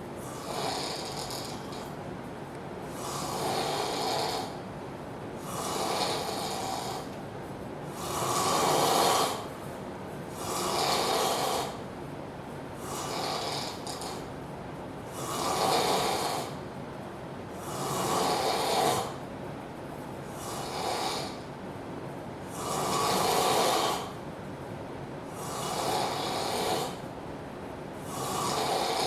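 A sleeping man snoring loudly, one snore about every two and a half seconds, some louder than others.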